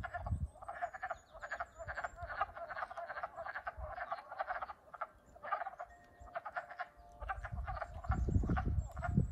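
Chorus of wood frogs: many short, overlapping, duck-like clucking calls from frogs freshly emerged in spring. A low rumble joins in near the end.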